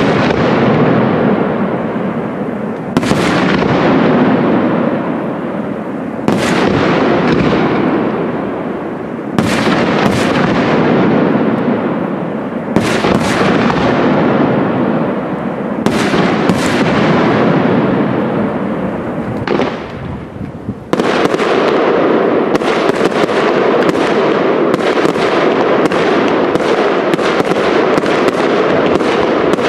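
Aerial fireworks shells bursting with loud bangs about every three seconds, some in quick pairs, each echoing away over a second or two. About two-thirds of the way through, a rapid barrage starts: many bangs in quick succession with continuous crackling.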